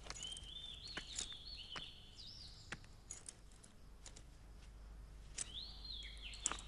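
Faint bird chirping: strings of high gliding calls for about the first three seconds and again near the end. Light clicks run under them as a bunch of keys is handled.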